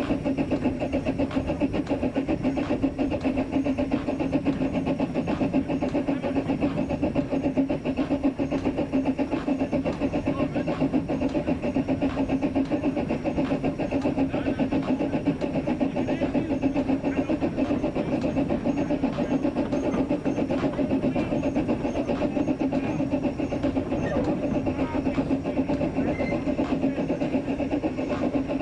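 Narrow-gauge steam locomotive, a small 0-4-2 saddle tank, running steadily along the line as heard from its footplate: a continuous mix of fast working noise and wheels on the rails, even in level throughout.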